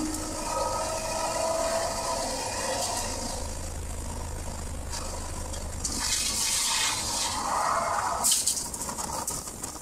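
Race car's engine running at speed, its pitch rising over the first few seconds, under a heavy rush of wind on the outside-mounted camera. The rush grows louder and hissier later on, and a few sharp knocks come near the end.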